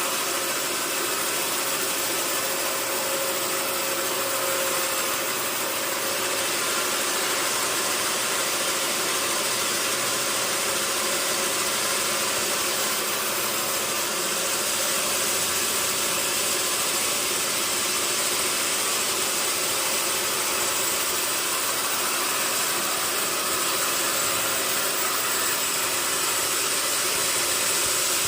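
Sawmill machinery running steadily, a constant mechanical hum under a strong hiss, with no breaks or separate knocks.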